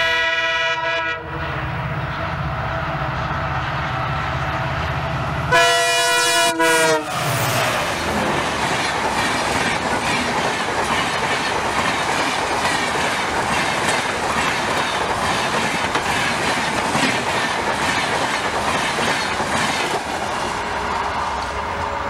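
WDP4 diesel locomotive (EMD two-stroke 16-cylinder) running hard as it approaches, with a horn blast fading out near the start and a loud horn blast about five and a half seconds in whose pitch drops as the locomotive passes. Then the LHB coaches rush by for the rest of the time: a steady rolling roar of wheels on rail with a rhythmic clatter.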